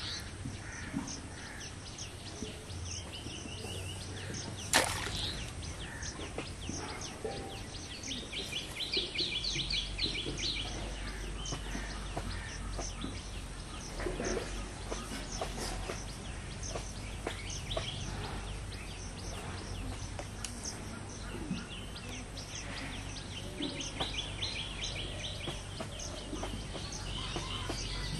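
Rural outdoor ambience: birds chirp and call now and then over a steady low background, with two spells of rapid high trilling. A single sharp click comes about five seconds in.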